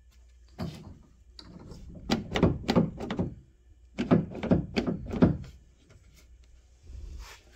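A detached steel car door being handled and turned over, giving a series of dull thumps and knocks in two clusters, with a single knock before and after.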